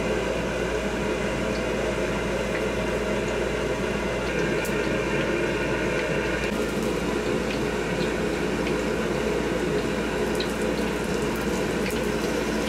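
Battered eggplant deep-frying in a wok of hot oil, the oil bubbling and sizzling steadily, with a steady kitchen hum underneath.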